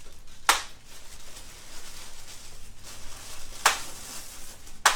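Handheld spring-loaded chiropractic adjusting instrument firing three sharp clicks, the first about half a second in and the other two near the end, about a second apart.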